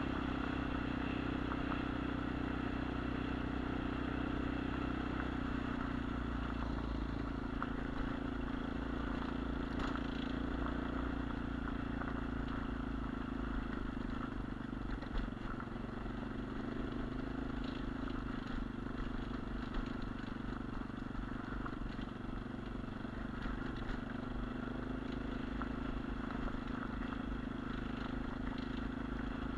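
Sprint Apollo RX 250 dirt bike's 250cc single-cylinder four-stroke engine running steadily while riding off-road, its note easing slightly midway and picking up again, with a few sharp clicks and clatter from the bike over rough ground.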